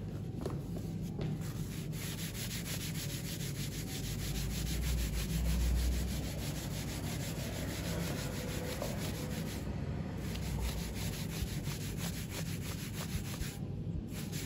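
Folded paper towel wet with thinners rubbed back and forth over the painted side of a 50 lb Trenton anvil, wiping excess paint off the raised lettering. A steady scrubbing that pauses briefly twice in the second half.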